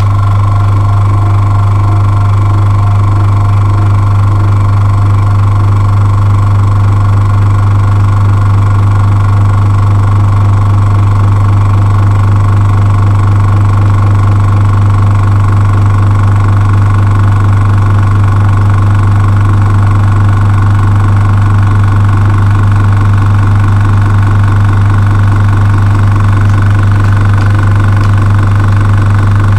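Small airbrush compressor with an air tank running steadily as it charges the tank toward its 2 bar (30 psi) cut-out: a deep steady hum with a fainter higher whine above it.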